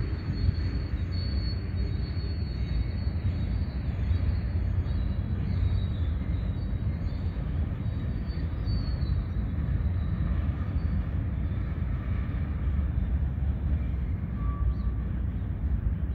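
BNSF freight train's flatcars rolling past: a steady rumble of wheels on rail, with a faint high wheel squeal in the first half that fades out.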